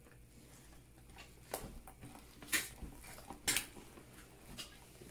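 Three short, sharp clicks about a second apart, from hands playing with slime and plastic toy food on a tabletop.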